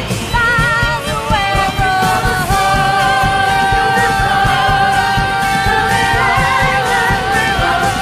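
Pop song with a woman singing lead over a full band: a quick run of ornamented notes, then one long belted note held for about five seconds that wavers near the end.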